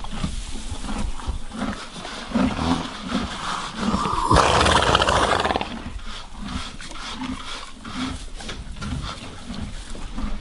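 A horse snorting: one loud, long blow through its nostrils about four seconds in. Soft low knocks and shuffling come from the stalls around it.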